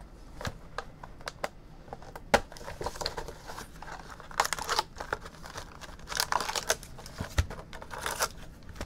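A cardboard trading-card hobby box being opened and its foil-wrapped card packs pulled out and handled: crinkling and rustling of the wrappers in a few short bursts, with scattered sharp taps and clicks of cardboard and packs.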